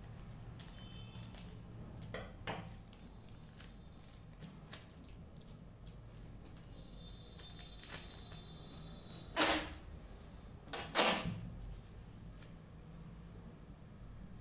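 Clear packing tape being handled and laid over paper stickers: scattered light crackles and taps of the plastic tape, with two short, loud rasps of tape being pulled off the roll in the second half.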